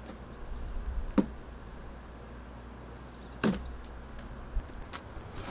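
A large cardboard furniture box being handled and tipped on a wooden deck: a few separate thumps and knocks, the loudest about three and a half seconds in.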